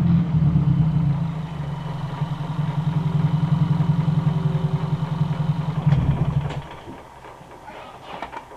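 Hyundai Veloster's four-cylinder GDI engine idling with a cone air filter on the intake in place of the stock airbox, then shut off about three-quarters of the way through.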